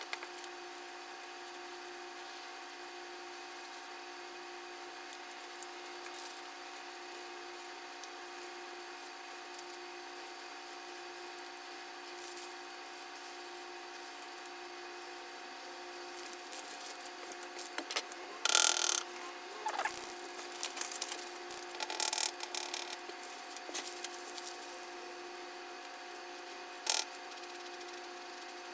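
A steady hum, with a run of quick rustles and clicks in the second half as things are handled on the table.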